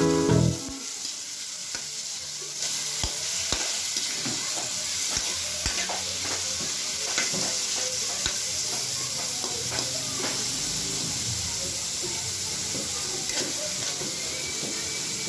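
Chicken pieces frying in oil in an aluminium wok, sizzling steadily while a metal ladle stirs them, scraping and clicking against the pan. The sizzle gets louder about two and a half seconds in.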